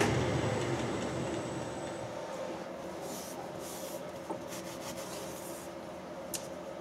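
Cloth rag rubbing over the machined cast-iron lathe back plate, in several soft hissy swishes, after a low machine hum dies away in the first couple of seconds. A light click comes near the end.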